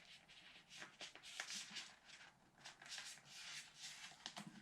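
Faint rustling and rubbing of hands handling small objects, with a few soft clicks.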